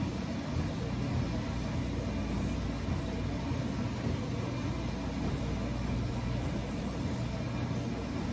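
Steady low rumble and hum of background room noise, even throughout, with no clanks or knocks standing out.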